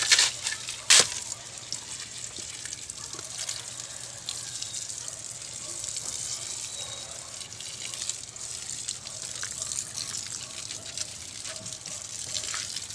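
Water running steadily with a gushing, trickling sound, with two sharp knocks at the start and about a second in.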